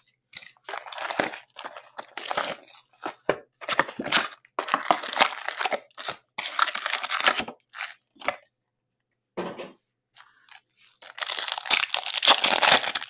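Plastic shrink-wrap being cut and torn off a hockey card box, the cardboard lid opening and foil card packs rustling in a series of crinkling bursts. Near the end a foil pack is torn open, the loudest stretch.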